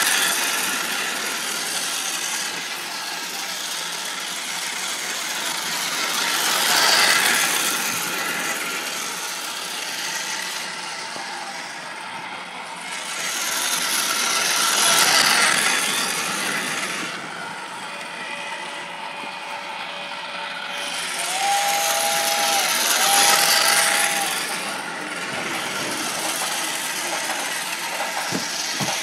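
Battery-powered toy train running around a plastic track loop, its motor and wheels giving a steady mechanical rattle that grows louder each time the train passes close, about every eight seconds. Two short tones sound about twenty-two seconds in.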